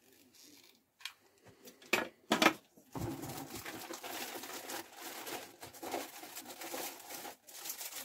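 A few sharp knocks about two seconds in, then steady rustling and crinkling of plastic wrapping being handled.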